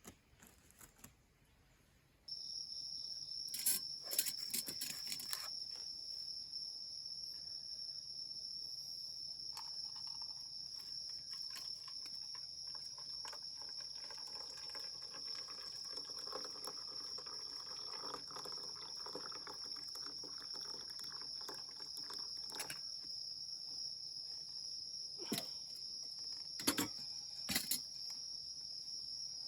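Insects trilling steadily at a high pitch, starting suddenly a couple of seconds in, with a few sharp clicks or knocks around four to five seconds in and again near the end.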